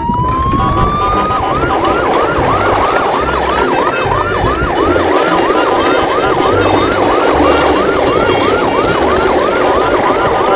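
Electronic siren: one rising wail over about the first second and a half, then a fast yelp sweeping down and up about three times a second, over a steady noisy rumble.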